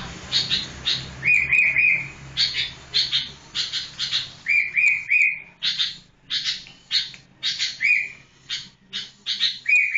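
Sooty-headed bulbul calling: a harsh chatter of rasping notes about twice a second, broken by short clear whistled notes in quick runs of two or three.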